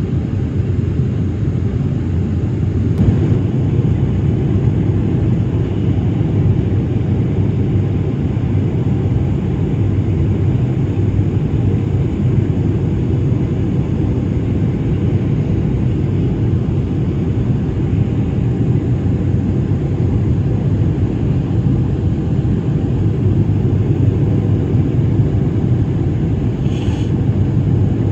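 Jet airliner cabin noise heard from a window seat: a steady low rumble of engines and rushing air as the plane descends on approach.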